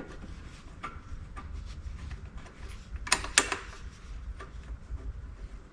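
Hand tools taking bolts back out: small scattered clicks and two sharp knocks about three seconds in, over a steady low rumble.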